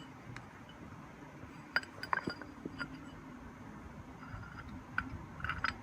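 Light metallic clinks and clicks of small mounting hardware being handled: a couple about two seconds in and a quick cluster near the end, over a low steady background hum.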